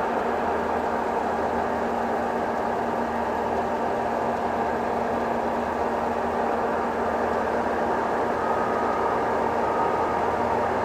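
Heavy diesel demolition machinery running steadily, an even engine drone with a constant low hum.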